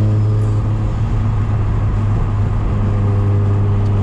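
Street-ported, single-turbo rotary engine of a Mazda RX-7 running under way, heard from inside the cabin. Its steady note wavers for a couple of seconds in the middle and then settles again.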